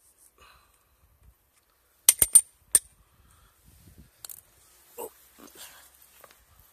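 Four sharp clicks in quick succession about two seconds in, then faint scattered ticks and rustling.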